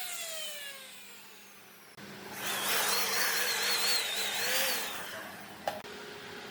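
A woodworking power tool winds down, its pitch falling as it slows. About two seconds in, a power tool runs for about three seconds with a wavering pitch as it works under changing load, then stops with a sharp click, leaving a steady hum.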